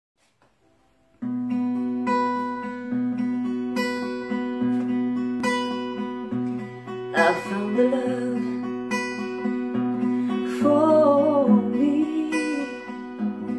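Acoustic guitar strummed in a steady run of chords, starting about a second in. A woman's singing voice joins in over the guitar about seven seconds in.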